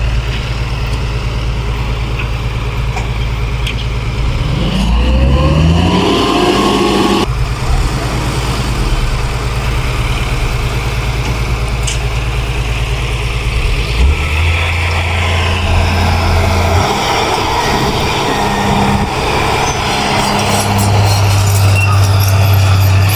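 Heavy diesel engines of earth-moving machinery, dump trucks and a bulldozer, running steadily, with one engine revving up in a rising whine about five seconds in.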